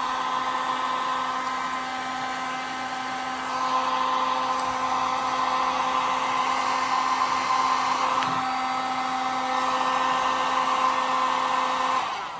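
Corded electric heat gun running steadily, its fan motor whining over the rush of hot air as it shrinks heat-shrink tubing over a soldered wire joint. It gets louder about four seconds in and cuts off abruptly near the end when switched off.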